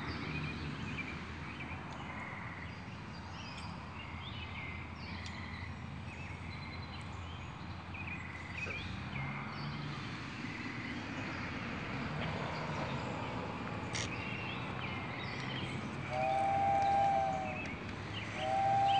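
Two long blasts of a two-note whistle from an RC sternwheeler model boat near the end, each about a second and a half. Before them, a steady outdoor background with birds chirping.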